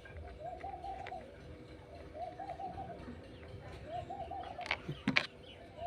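A dove cooing: three short phrases, each a quick run of notes, repeating about every second and a half to two seconds. Two sharp clicks come near the end.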